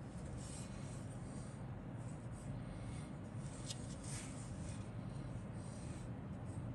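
Plastic model-kit sprues handled in the fingers: faint, scattered rubbing and scraping of plastic, with a light click a little past halfway through, over a steady low hum.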